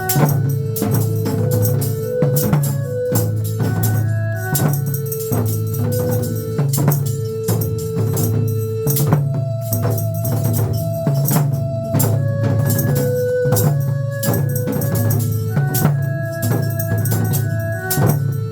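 Upbeat instrumental music of the kind a pumba street troupe plays: a melody of held, organ-like notes over a steady bass, a drum beat and tambourine.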